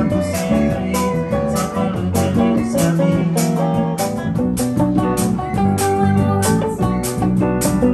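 Live band playing: acoustic and electric guitars with bass guitar, keyboard and drums, over a steady beat of drum and cymbal hits.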